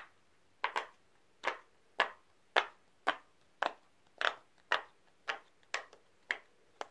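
Silicone pop-it fidget toy having its bubbles pushed through one after another on its loud side: a run of sharp pops, about two a second.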